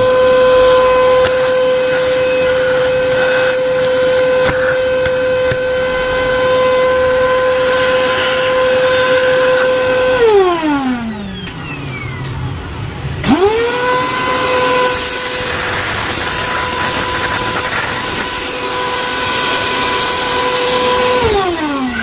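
Euroclean vacuum cleaner's suction motor running with a steady high whine. About ten seconds in it shuts off and winds down, then about three seconds later it starts again and quickly spins back up. It runs steadily until it shuts off and winds down near the end; the repaired motor is working properly.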